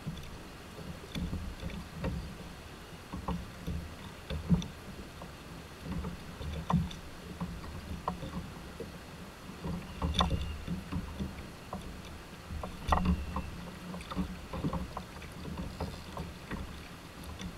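Small waves lapping and knocking against a kayak's hull as it rocks on the chop, a low uneven rumble, with scattered sharp clicks and taps, the loudest about four and a half seconds in.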